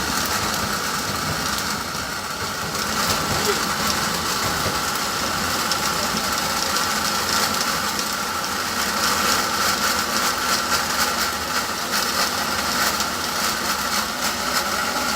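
Steady machine noise with a constant whine and no distinct strikes.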